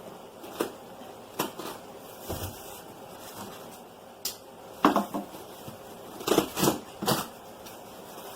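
Cardboard box and packaging being opened and handled: irregular knocks, scrapes and rustles, with the loudest cluster about five seconds in and again from six to seven seconds in.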